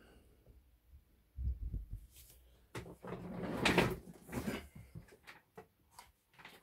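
Handling sounds on a workbench: a few dull knocks, then a louder rustling scrape lasting over a second about three seconds in, then light clicks and taps near the end as a clear plastic tub of lead cores is handled.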